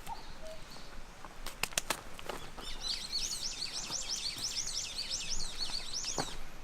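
A small songbird singing a fast run of repeated rising high notes, about five a second, for roughly three seconds. A few sharp knocks come shortly before the song starts.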